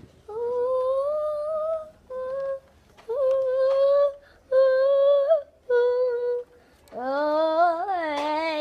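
A child humming a wordless tune in a run of held notes with short breaks between them, the last note lower and wavering.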